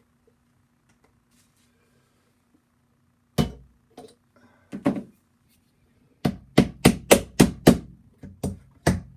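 Hammer tapping copper tacks through a copper sheet into a wooden box top: after a quiet start, a few single blows, then a quick run of strikes about four a second over the last three seconds.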